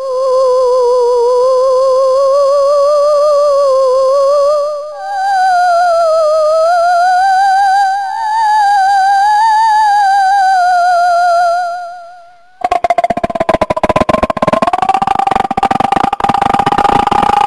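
Ghostly wailing tone from a horror ringtone, wavering with a fast vibrato and drifting slowly upward in pitch, with a brief dip and a step up about five seconds in. It fades out about twelve seconds in. A moment later a dense crackling rattle starts under a held wail.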